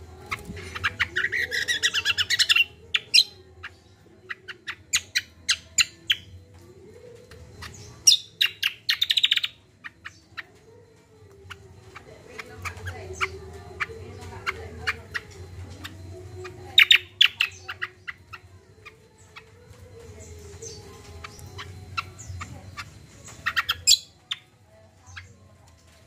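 Kacial songbirds chattering in loud, rapid bursts of high chirps every few seconds, over a fainter, lower wavering warble.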